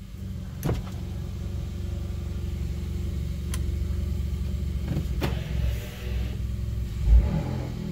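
A 2018 Hyundai Elantra GT Sport's 1.6-litre turbocharged four-cylinder running through an aFe axle-back exhaust as the car drives: a steady low drone. A few sharp clicks cut through it, and a loud low thump comes near the end.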